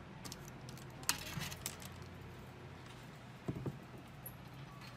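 Faint handling clicks as a programming cable's plug is pushed into a handheld two-way radio's side accessory jack. There is a sharp click about a second in, and a dull knock about three and a half seconds in.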